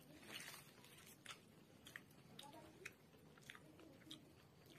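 Faint, scattered clicks and soft crackles of eating: a piece being torn off an egg roll by hand, with quiet mouth sounds.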